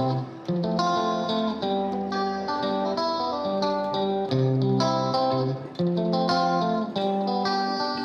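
Background music: a guitar-led instrumental track with plucked notes over a bass line.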